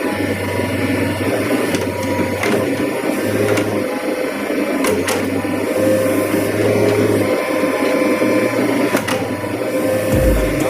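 Backhoe loader's diesel engine running with its hydraulics working: a steady mechanical drone whose low note comes and goes, with a few sharp knocks.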